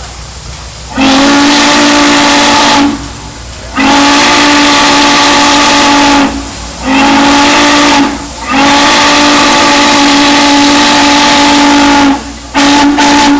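Steam whistle blowing a series of long, steady-pitched blasts, then two quick short toots, with a steady hiss of steam between the blasts.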